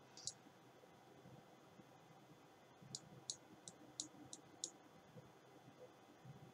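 Six faint clicks of a computer mouse in quick succession, about three a second, against near silence.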